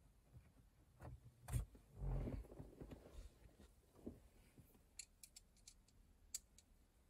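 Faint handling noises from plastic dash cluster parts and screws: a sharp click about a second and a half in, a short rustle, then a few light ticks near the end.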